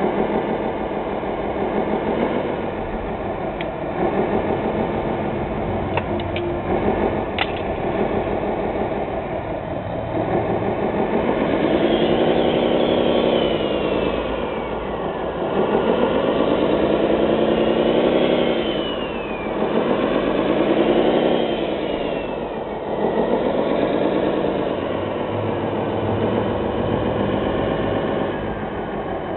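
Engine sound of a radio-controlled construction machine. It runs steadily at first, with a few sharp clicks about six to seven seconds in. From about ten seconds in it revs up and down five times in a row, each swell about three seconds long.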